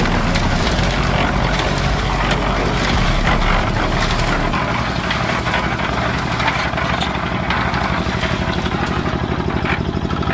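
Concrete mixer running, its engine a steady mechanical drone over a rough rattling hiss. About four and a half seconds in the engine note changes and settles into a fast, even pulse.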